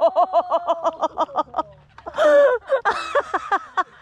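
A woman's wordless voice broken into quick, even pulses, like laughing, then a short cry about two seconds in and a few more short pulses near the end.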